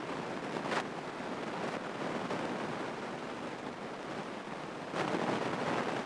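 In-flight cabin noise of a small single-engine Grumman airplane: a steady rushing hiss of engine and airflow with no clear engine tone, a little louder about five seconds in.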